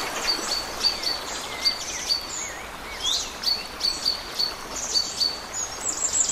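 Several small birds singing in a dawn-chorus mix: a short high note repeated about three times a second, thin higher trills, and a few wavering lower whistles about one and a half to two and a half seconds in, over a steady outdoor hiss.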